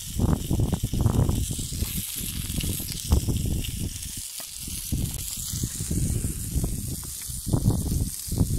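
Chicken pieces sizzling on a hot stone slab over a wood fire, a steady hiss, with wind rumbling in uneven gusts on the microphone.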